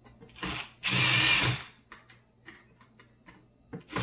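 Milwaukee cordless drill driving a screw into the garbage disposal's wiring cover: a short spin, then a longer, louder run of under a second, a few light clicks, and the drill starting up again right at the end.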